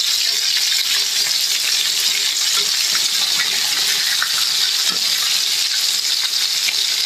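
Pieces of pekasam (fermented fish) deep-frying in hot oil in a wok: a steady sizzling hiss with fine, continuous crackling.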